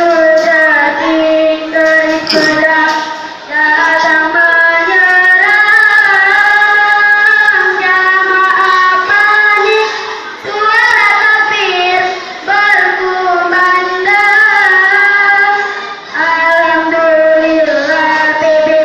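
A child's solo voice singing unaccompanied in long held, ornamented phrases, pausing briefly between them about every six seconds.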